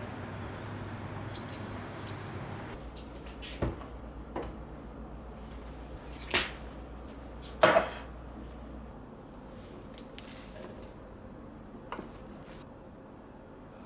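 A few separate knocks and clacks of household objects being handled, the loudest about two-thirds of the way in, over a steady low hum.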